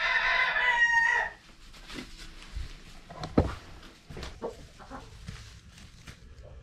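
Rooster crowing once, a loud call of about a second and a half. It is followed by a single sharp knock about three and a half seconds in and faint scattered knocks.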